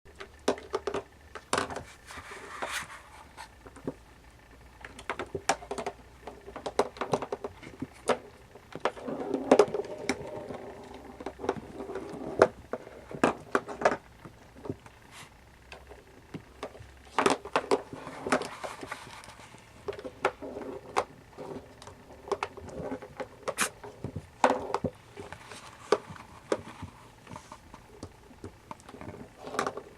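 Siamese kittens playing: irregular light taps, knocks and scuffles, with short stretches of rustling.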